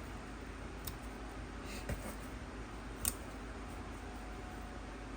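Three light clicks or taps, about a second apart, over a low steady background hum.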